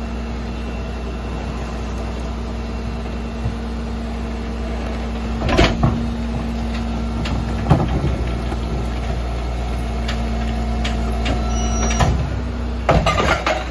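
Peterbilt rear-loader garbage truck idling with its hydraulic packer cycling, a steady hum with a held tone that stops about twelve seconds in. Several separate clanks come through the hum, and near the end a rattling clatter as a recycling bin is tipped into the hopper.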